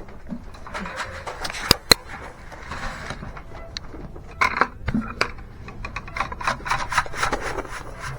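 Grain being dumped into feed buckets: rustling and scraping of feed and buckets, with two sharp knocks a little under two seconds in.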